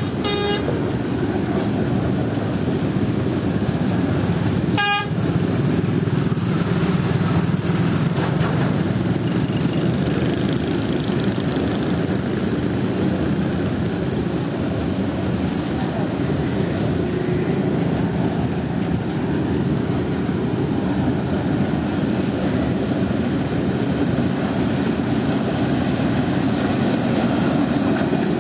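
Covered freight wagons rolling past on the track with a steady rumble. Two short horn toots sound, one at the start and one about five seconds in.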